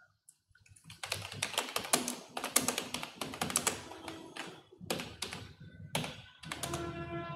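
Computer keyboard being typed on: a quick, uneven run of key clicks that starts about a second in and goes on for several seconds.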